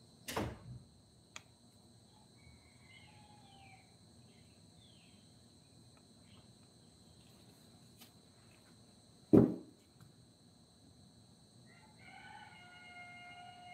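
Steady high insect drone with a few bird chirps, broken by two sharp knocks, the second, about nine seconds in, much louder. Near the end a long held animal call at a steady pitch begins.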